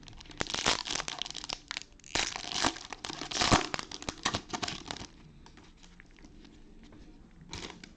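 Plastic wrapper of a trading card pack being torn open and crinkled by hand, with quick crackling bursts for about five seconds, then quieter with one more short crinkle near the end.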